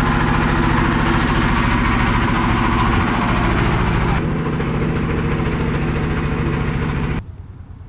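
Tourist boat's engine running steadily and loudly, with a low, even drone. It cuts off suddenly near the end.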